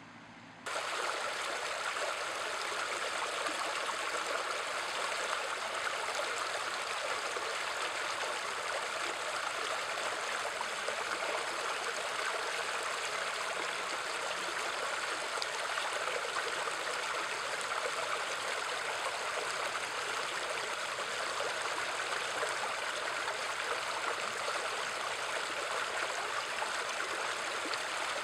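Shallow creek water running over stones in a small riffle, a steady rushing and burbling that starts suddenly just under a second in.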